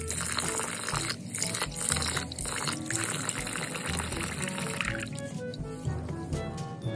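Tap water running into a metal rice-cooker pot while rice is rinsed in it, with background music playing; the running water stops about five seconds in.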